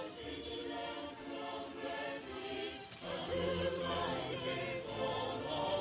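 Background music: a choir singing sustained chords, with low bass notes joining about three seconds in.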